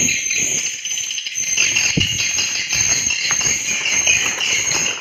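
Continuous, dense high-pitched twittering of swiftlets, made of many short falling chirps. A single low knock, likely from handling, comes about two seconds in.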